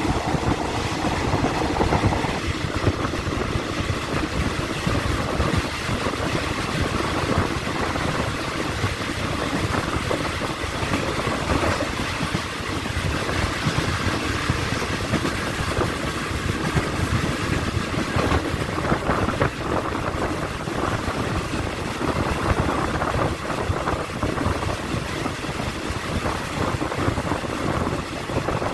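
Passenger train carriage running at speed, heard from an open window: a steady rumble of wheels on the rails with rapid clattering throughout.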